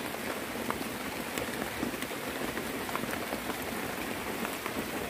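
Steady rain pattering, with many scattered single drops ticking sharply.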